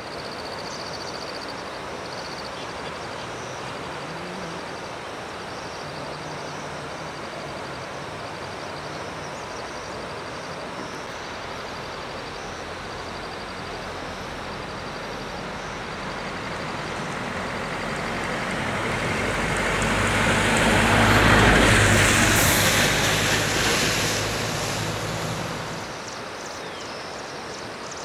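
Steady rushing of a swollen, muddy flood river. A motor vehicle's engine grows louder, passes close about 21 seconds in, and fades away by about 26 seconds.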